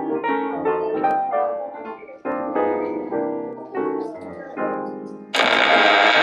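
Background piano music, a run of separate notes. About five seconds in, a louder, wavering sound cuts in suddenly over it.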